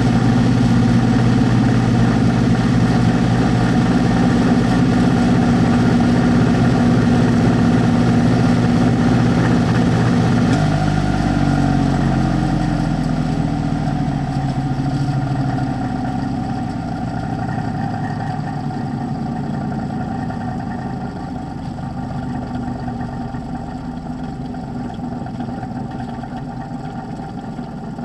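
VIVOSUN 203 CFM 4-inch inline fan running loud and steady at full speed, then switched off about ten seconds in and spinning down: its hum drops in pitch and fades gradually.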